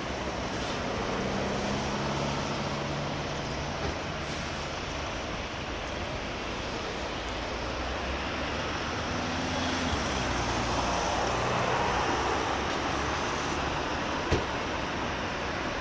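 Outdoor vehicle engine noise: a steady rumble with a low hum of idling engines, swelling for a few seconds about ten seconds in. A single sharp click comes near the end.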